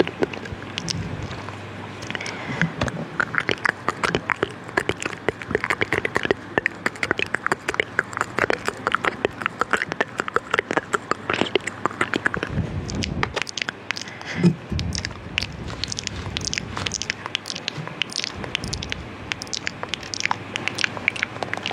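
Close-miked mouth sounds: a dense, irregular stream of wet clicks and smacks of lips and tongue, with one louder pop about two-thirds of the way through.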